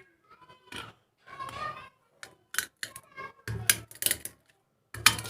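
A pestle pounding roasted cloves and black peppercorns in a mortar: irregular sharp knocks that start about two seconds in and come closer together near the end.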